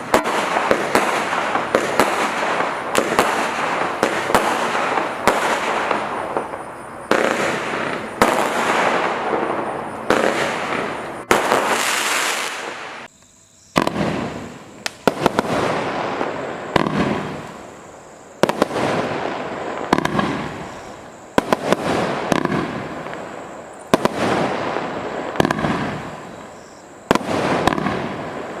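Consumer firework cakes and barrages firing: a steady run of sharp bangs about every second or so, each trailing off, with a brief lull about thirteen seconds in.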